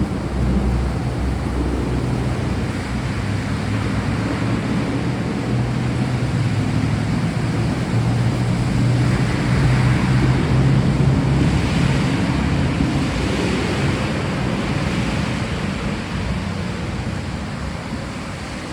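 Steady heavy rain and wind with a low rumble of thunder underneath, swelling louder around the middle.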